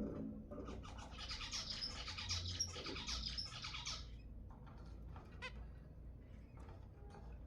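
Zebra finches calling: a dense run of rapid, high-pitched chattering calls from about a second in to about four seconds, then scattered single calls.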